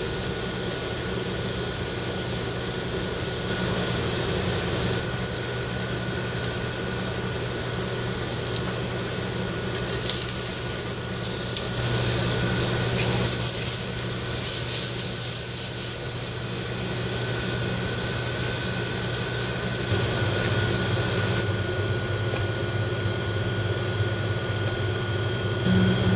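Spice-rubbed flat iron steak sizzling on a char-grill over a steady low hum, the sizzle growing louder and brighter about ten seconds in and easing off again some ten seconds later.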